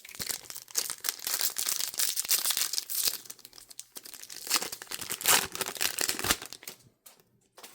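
Foil trading-card pack wrapper crinkling and tearing as a pack is ripped open, a run of crackly bursts that stops shortly before the end.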